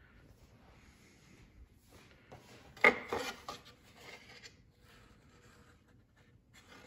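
Thin molded fiberglass model-aircraft parts being handled on a workbench: light rubbing and scraping, with one sharp knock about three seconds in and a few softer taps after it.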